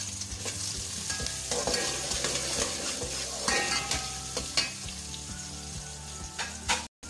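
Sliced onions sizzling as they fry in hot oil in a metal pot, with a ladle scraping and clacking against the pot as they are stirred. The sound cuts out for a moment just before the end.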